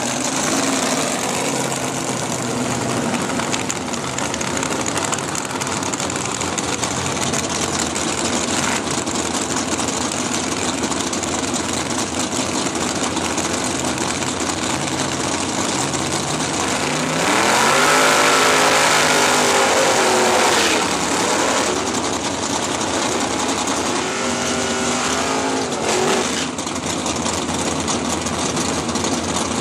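Drag race car engine running steadily, then revved hard and held high for a few seconds in a burnout about two-thirds of the way through, followed by a shorter rev.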